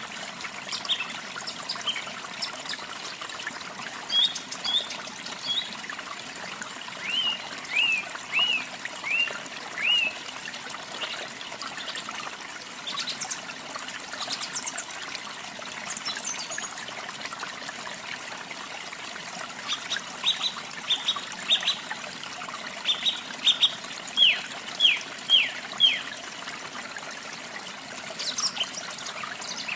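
Steady trickle of running water, with a bird calling in runs of short, down-slurred chirps, once about a quarter of the way in and again, more loudly, about two-thirds of the way in.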